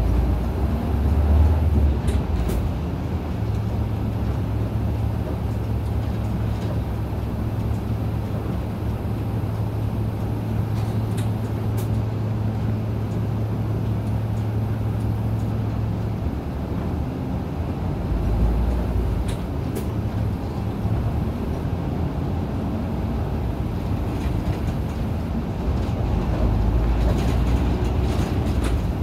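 Isuzu KL-LV280N1 city bus under way, heard from inside the cabin: a steady low engine drone over road rumble, with a few light rattles and clicks. The engine note holds steady for about twelve seconds, then gives way to deeper swells of rumble later on.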